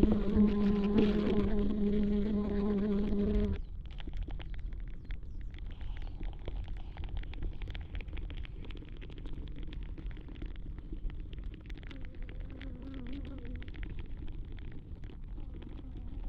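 Flies trapped in a fly-trap bag, picked up through contact mics on the bag: a loud, steady low buzz with overtones that cuts off suddenly about three and a half seconds in. After it, faint crackling ticks and a few weak, brief buzzes remain.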